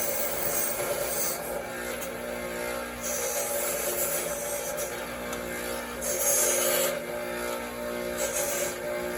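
Wire wheel brushing corrosion off the cast aluminum base of a Porsche 915 gearbox shifter: a steady motor hum with four hissing, scratchy bursts as the wire bites the metal, the loudest about six seconds in.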